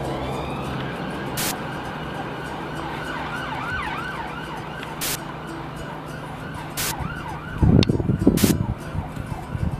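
A siren wailing, its pitch sweeping up and down over a steady hum. A burst of loud low rumbling comes near the end.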